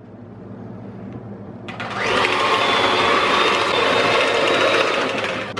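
Handheld electric mixer with twin beaters running in a bowl of butter, egg yolk and sugar batter. It runs quietly at first, then whirs much louder from about two seconds in, and drops back near the end.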